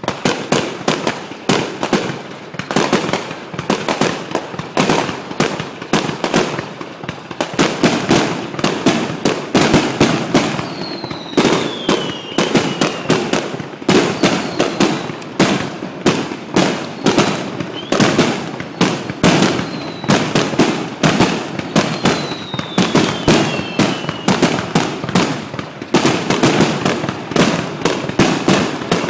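Aerial fireworks display: a continuous barrage of shell bursts and crackling reports, several bangs a second. Twice, about a third and three quarters of the way through, a falling whistling tone sounds over the bangs.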